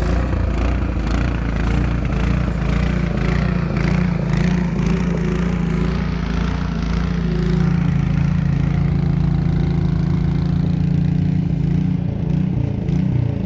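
Snowblower engine running steadily at an even speed, a loud, constant engine drone that wavers a little near the end.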